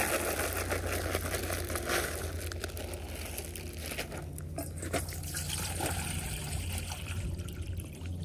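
Dry dog kibble poured from a plastic bag into a plastic bowl, rattling, then the bag rustling as it is handled. Near the end, water is poured from a plastic bottle into a steel dog bowl. A low steady rumble runs underneath.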